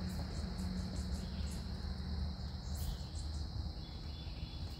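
Insects buzzing in a steady, even high drone from the wooded riverbank, over a low steady rumble.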